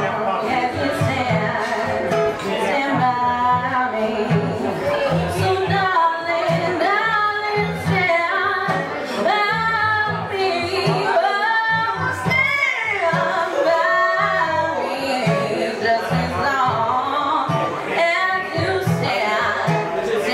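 A woman singing a song into a microphone, with long held, wavering notes, over a steady rhythmic guitar accompaniment.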